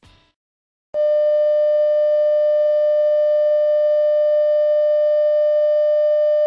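Colour-bars test tone: a loud, steady, unbroken electronic tone at one mid pitch with fainter higher overtones. It starts abruptly about a second in, after a moment of silence.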